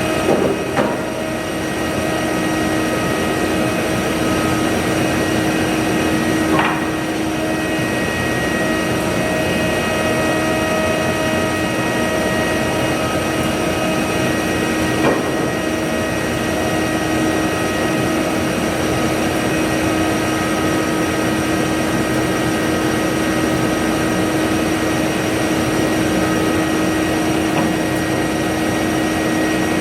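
A woodworking shop machine running steadily: a loud, even hum with a constant whine, and a few short knocks, about a second in, near 7 seconds and near 15 seconds.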